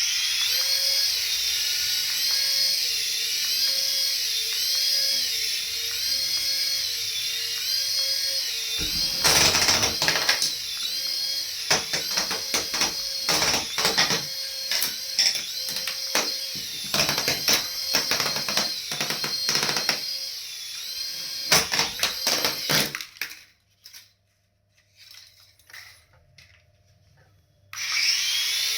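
A remote-control toy's small electric motor whining, its pitch wavering up and down about once a second. Halfway through, a run of sharp clicks and knocks of the toy being handled cuts across it. The motor stops for a few seconds near the end, then starts whining again.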